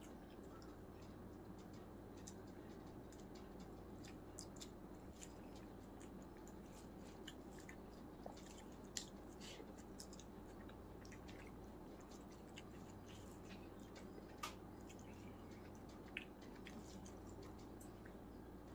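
Faint eating sounds of a person eating biryani rice by hand: soft chewing, mouth clicks and fingers squishing rice on a plate, with a few sharper clicks. A steady low hum runs underneath.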